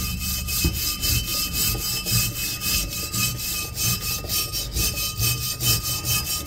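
Hand wire brush scrubbed back and forth in quick, regular strokes along a rusty steel tail-shaft tube, scraping off rust loosened by an overnight citric acid soak.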